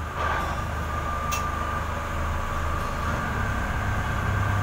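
Mooring boat's engines running steadily under way, heard inside the wheelhouse: a low drone with a steady higher whine over it and a single light click about a second in.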